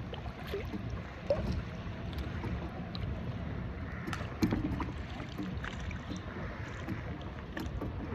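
Steady low wind rumble on the microphone aboard a kayak, with a few light knocks, the loudest about a second in and again about four seconds in.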